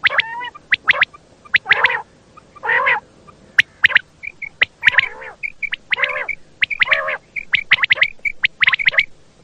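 Quail calling over and over: quick clusters of three or four short, sharp whistled notes, with lower, throaty nasal calls in between.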